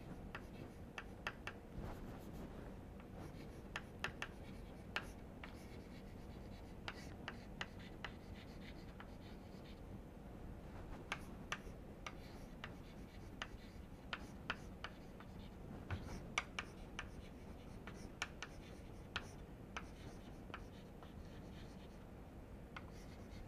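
Chalk writing on a blackboard: faint, irregular taps and scratches of the chalk strokes.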